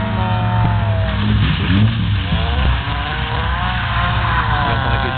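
Rally car's engine revving as it drives a cone course, its pitch rising and falling again and again with throttle and gear changes, over a steady low drone.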